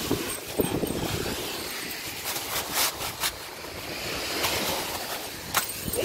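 Wind buffeting the microphone over the steady wash of ocean surf, with rustling and a few sharp clicks as a beach umbrella is pulled out of its nylon bag: a cluster of clicks about halfway through and one more near the end.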